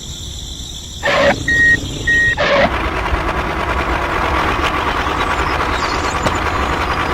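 Two short, high electronic beeps between two sharp knocks, then a steady rushing noise.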